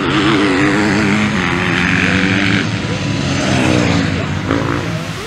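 Several motocross bikes' engines revving on the track, pitches overlapping and rising and falling as the riders work the throttle.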